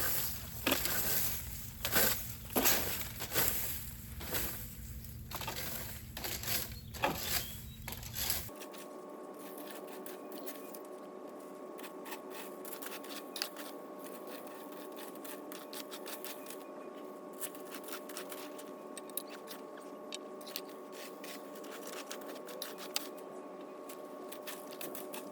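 Dry pine needles being raked and scraped up, a run of irregular crackling, scraping strokes. About eight seconds in the sound cuts abruptly to a steady hum with a few held tones and faint scattered clicks.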